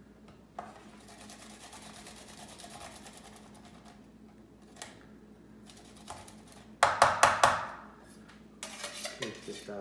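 Garlic cloves rubbed up and down on the small holes of a metal box grater, a faint fast rasping scrape. About seven seconds in comes a quick run of loud knocks, and a few more follow near the end.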